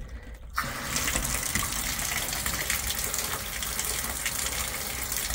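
RV bathtub faucet turned on about half a second in, water then gushing steadily into the tub as the line is run clear of winterizing antifreeze.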